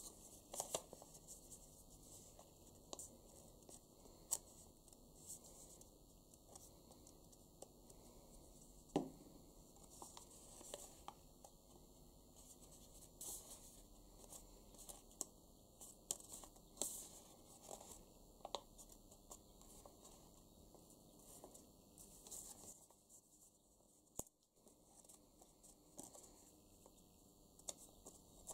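Faint rustling and light tapping of paper being handled and folded by hand, with scattered small clicks.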